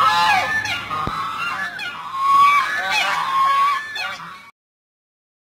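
Several domestic geese honking loudly, calls overlapping, with a few long drawn-out honks among shorter ones; the sound cuts off abruptly about four and a half seconds in.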